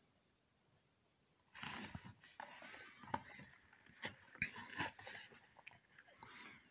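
Cardboard medicine box being handled and turned over in the hands: irregular rustling and light scraping starting about a second and a half in, with a couple of faint high squeaks.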